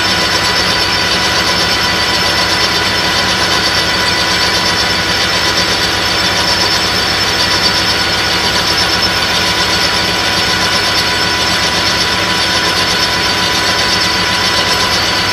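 Metal lathe running steadily with a constant whine from its drive, while an end mill in the chuck cuts a slot in a brass bar fed slowly on a milling attachment.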